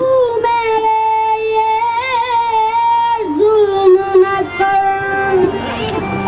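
A female voice singing a slow song in long, held notes with small wavers of pitch, the melody stepping lower a little past halfway.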